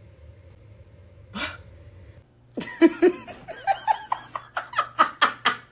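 A man laughing: one short breath about a second and a half in, then a quick run of laughs from about two and a half seconds in, several bursts a second.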